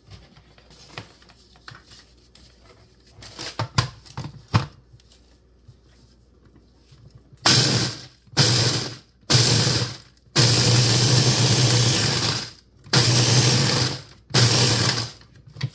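Electric food chopper pulsed in short runs, grinding whole graham crackers into crumbs. After a few light handling knocks, it runs six times about seven seconds in: three quick pulses, one longer run of a couple of seconds, then two more quick pulses.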